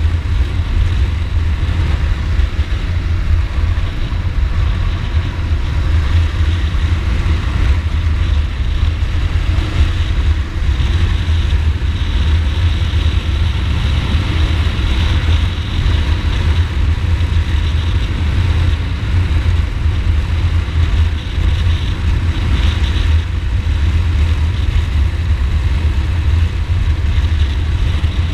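Ducati Multistrada motorcycle being ridden at a steady pace: engine running, with wind rushing over the microphone as a steady rumble and no clear changes in revs.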